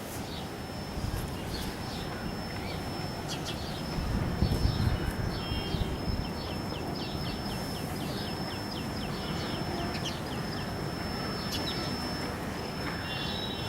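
House sparrows chirping: a run of short, quick chirps, thickest in the middle of the stretch, over a low background rumble that swells briefly about four seconds in. A steady high thin whine runs underneath.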